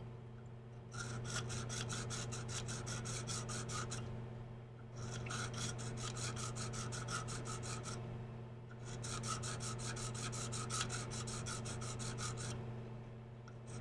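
KME tapered diamond rod stroked quickly back and forth in a serration of a steel SOG knife blade, with light pressure: a fast, rhythmic scraping in three bouts of about three seconds each, with short pauses between.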